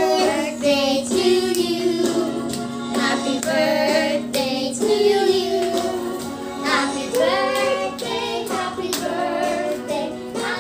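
Music: a song with sung vocals over a steady backing track.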